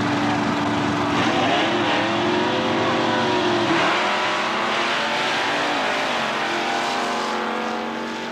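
Two drag-racing cars' engines revving up and down at the starting line, then launching and accelerating away down the strip, their pitch climbing and dropping once about six seconds in.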